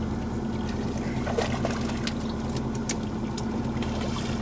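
Boat's outboard motor idling steadily, with a few short splashes and clicks from a fish being hauled in on a handline alongside.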